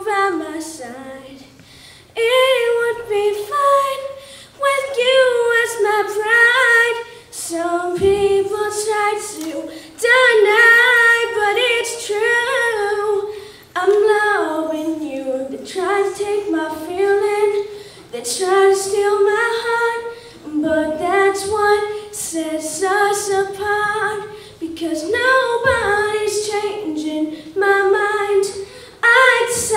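A boy singing solo and unaccompanied in an unbroken high voice, in sung phrases with short breaks between them.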